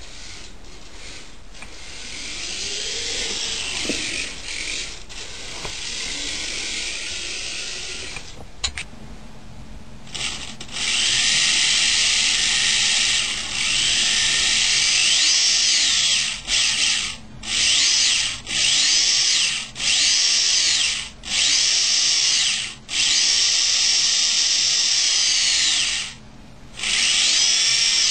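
Small electric RC car motor whining in repeated bursts as the throttle is blipped on and off, its pitch rising and falling with motor speed.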